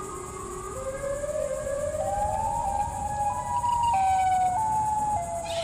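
Siren-like wailing sound effect: several tones together climb in steps and grow louder over a few seconds, then step back down a little near the end.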